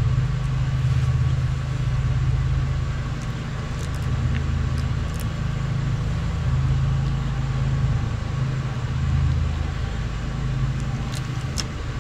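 A steady low mechanical hum with a faint high whine, from a running machine. Over it come a few light clicks as a cable end cap is crimped onto a brake cable with pliers.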